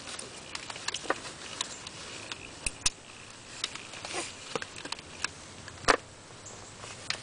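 Seat belt being handled: irregular small clicks of the buckle and rustling of the strap, with one sharper click about six seconds in.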